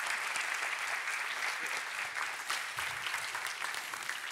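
Audience applauding, a dense patter of many hands clapping that slowly eases toward the end.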